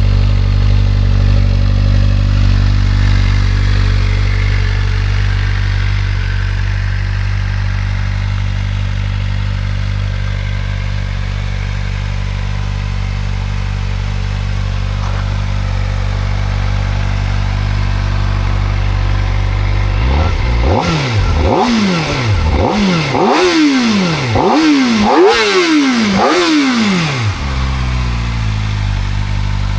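Kawasaki Ninja ZX-4RR's 399 cc inline-four idling on a cold start, then about two-thirds of the way in blipped through half a dozen quick, high revs before it settles back to idle.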